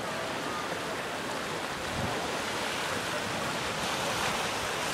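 Ocean surf washing over rocks and sand: a steady rush of small waves.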